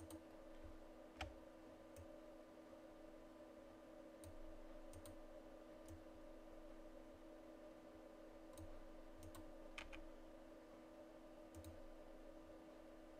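Near silence with faint, scattered computer mouse and keyboard clicks, a dozen or so at irregular intervals, over a steady low hum.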